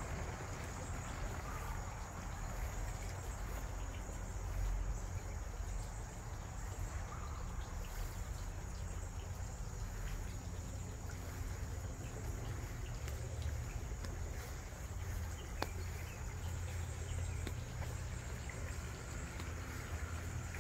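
A steady chorus of insects chirping in the background, as a high, unbroken shrill, over a continuous low rumble.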